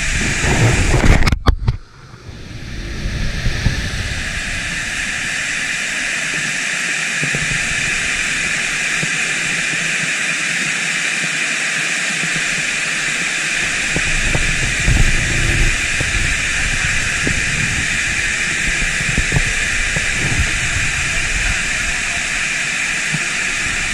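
Steady rush of water pouring over a dam spillway and churning in the pool below, with low rumbles of wind or handling on the microphone at times. The sound breaks off sharply and dips briefly about two seconds in.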